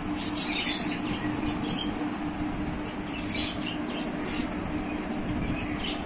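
Graphite pencil scratching on paper in a handful of short sketching strokes, over a steady low hum.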